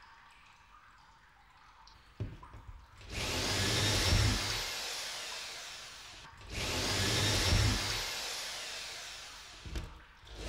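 A sharp knock about two seconds in, then loud, harsh whirring noise with a deep rumble, coming in two long swells of about three seconds that each fade off, with a third starting near the end.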